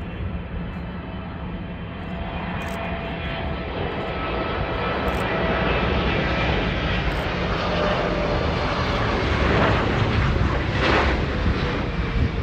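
Twin-engine Boeing 777 jet airliner landing, its engines running with a steady rushing noise and a high whine that grow louder over the first several seconds as it passes close by. A brief louder rush of noise comes near the end.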